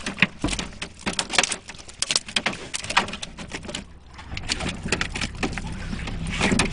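Freshly caught flathead fish flapping and slapping inside a plastic fish crate, a quick, irregular run of wet slaps and knocks. A boat engine hums low underneath, growing a little louder in the second half.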